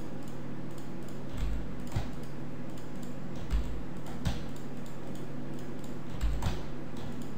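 A handful of separate computer keyboard key presses and mouse clicks, made while Blender hotkeys such as Make Edge/Face are used, over a steady low hum.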